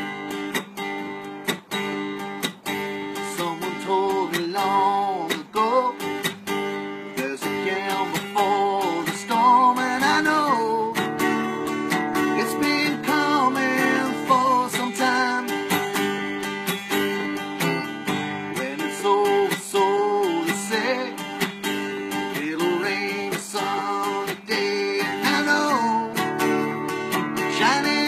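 Steel-string acoustic guitar strummed in a steady rhythm, with a man singing over it from a few seconds in.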